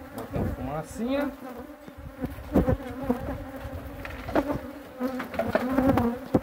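Honeybees buzzing in a steady hum around the hives, with single bees passing close to the microphone in brief rising and falling whines. A few knocks are heard as the wooden hive boxes are handled.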